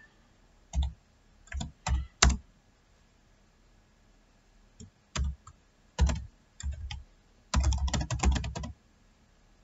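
Computer keyboard typing: short runs of keystrokes with pauses between them, and a quicker, denser run about three-quarters of the way through.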